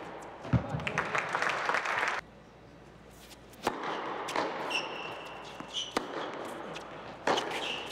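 Indoor tennis: a ball thud and a spell of crowd clapping that cuts off abruptly about two seconds in, then a rally with sharp racket hits on the ball every second or two and short high squeaks of shoes on the hard court.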